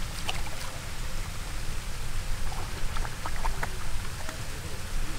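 Steady rushing noise of water, with a few faint ticks between about two and three and a half seconds in.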